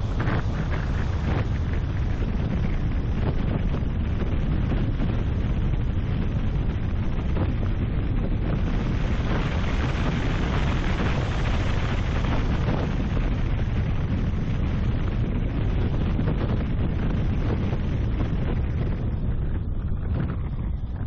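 Wind buffeting a car-mounted microphone over steady road and engine noise from a car driving along a tarmac road. The noise eases a little near the end.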